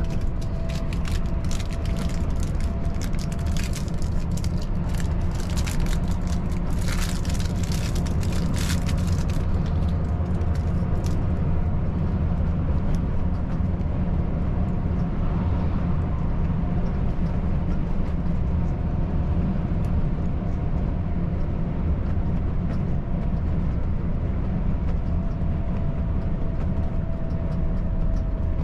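Volvo FH540 truck's six-cylinder diesel running steadily at highway cruise, with a constant low drone of engine and road noise. A scatter of sharp clicks sits over it during roughly the first ten seconds.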